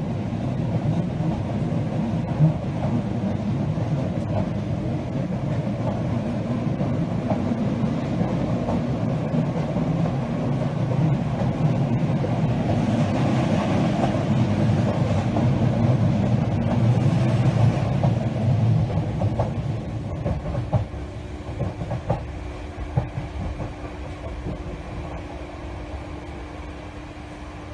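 Passenger train heard from inside the carriage while moving: a steady low rumble of wheels on rails with occasional rail-joint clicks. It grows louder in the middle as something passes close outside the window, then quieter toward the end, where a steady hum comes through.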